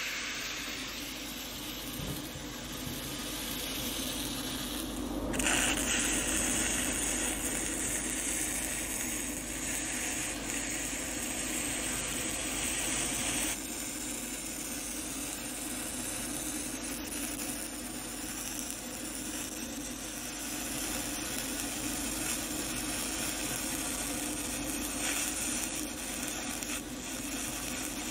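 Arc of a stick (manual metal arc) welder burning a cellulosic pipe electrode along a pipe joint, running steadily, with abrupt changes in its sound about five and thirteen seconds in.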